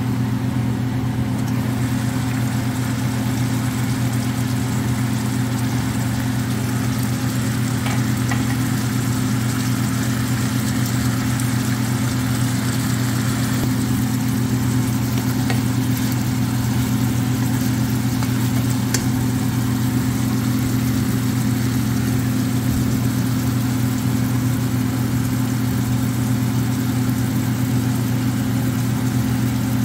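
A steady low mechanical hum, unchanging throughout, over a faint sizzle of chicken livers simmering in sauce in a stainless steel pan.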